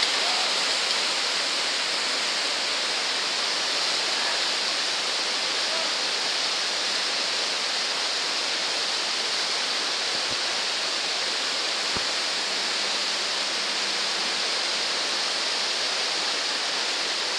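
Whitewater rapids rushing steadily over rocks: a continuous, even roar of fast river water.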